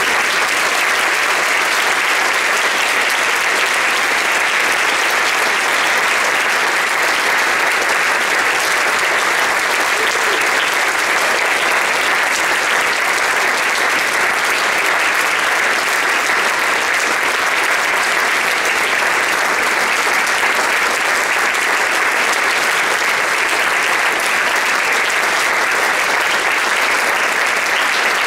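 Audience applauding, an even, unbroken clapping.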